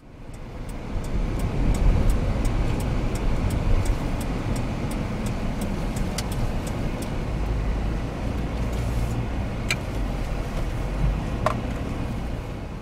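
Steady rumble of an engine running, with wind buffeting the microphone. Quick light ticks come about three a second through the first half, and a few sharper clicks follow later.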